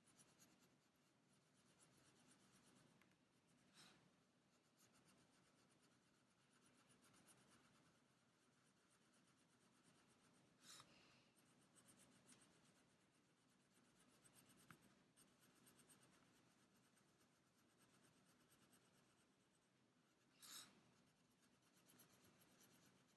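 Very faint scratching of a colored pencil shading on shrink plastic in short strokes, with three brief ticks, the loudest near the end.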